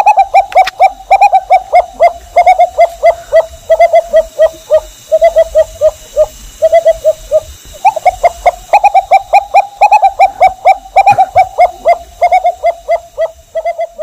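An animal calling in a rapid, unbroken string of short pitched notes, about seven a second, with one brief pause about halfway through.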